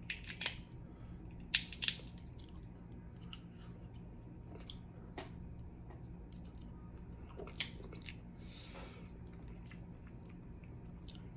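Close-miked eating of a seafood boil: scattered sharp clicks and cracks with chewing, the loudest cracks coming in the first two seconds.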